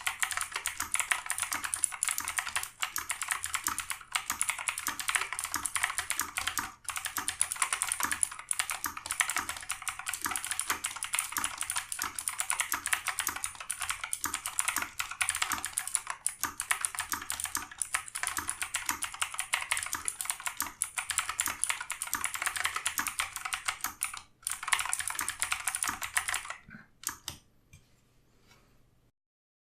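Fast, continuous typing on a Razer BlackWidow X Tournament Edition Chroma mechanical keyboard with clicky Razer Green switches and low-profile keycaps, many keystrokes a second. There is a brief break about 24 seconds in, and the typing stops about 27 seconds in.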